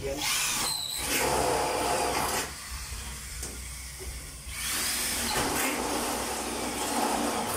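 A power tool running in two bursts: the first lasts about two and a half seconds, and the second starts about four and a half seconds in.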